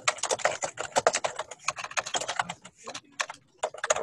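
Rapid typing on a computer keyboard: a dense run of key clicks with a short lull about three seconds in, picked up by an unmuted microphone on the video call.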